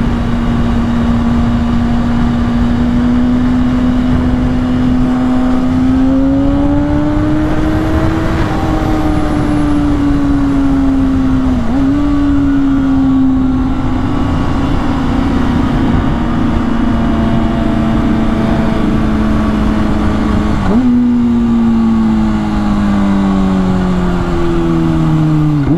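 Kawasaki ZX6R's 600cc inline-four engine running steadily under way at fairly high revs, heard from the rider's position. The revs rise slightly about a quarter of the way in and dip sharply twice, then wind down in several falling steps near the end as the bike slows.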